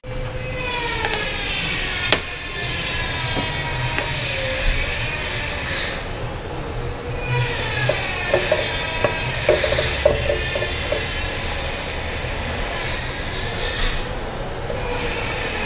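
Machine running with a steady whine whose pitch slides down over the first couple of seconds and climbs again about two seconds before the end, with a few light metallic clicks.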